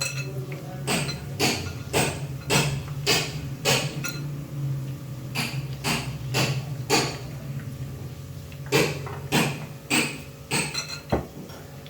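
Sharp knocks, about two a second, in three runs of four to six strikes, over a steady low hum.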